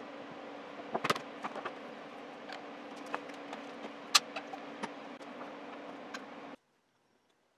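Hardwood chair parts knocking and clicking against each other as a glued curved top rail is fitted onto the legs and slats by hand: scattered light knocks, the loudest about a second in and about four seconds in. Under them a steady background hum, which cuts off abruptly near the end.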